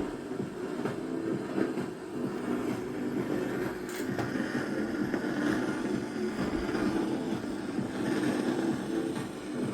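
A weakly received distant FM radio broadcast playing through a radio's speaker: the station's music and programme muddied by heavy noise and hiss.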